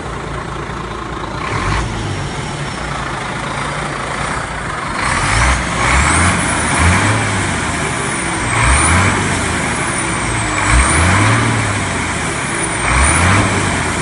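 Iveco Stralis's Cursor 13 straight-six diesel idling, then revved hard about five times in quick succession. A high turbo whistle rises with each rev and slides down again as the revs drop.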